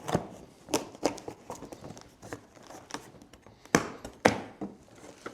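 Irregular clicks and knocks, about a dozen, as a new cordless stick vacuum and its packaging are handled during unboxing; the two loudest knocks come near the end.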